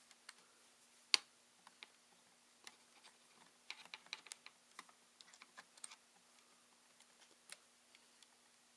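Scattered small clicks and taps of laptop parts and screws being handled during reassembly of a ThinkPad T61, with one sharper click about a second in and a quick run of clicks around four seconds.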